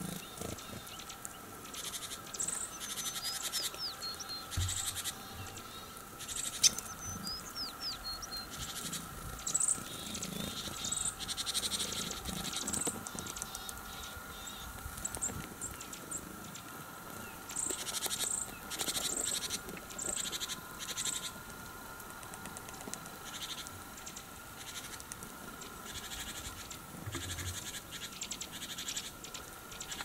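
Tits at a winter bird feeder: a few short, high calls, with bouts of quick pecking and scratching.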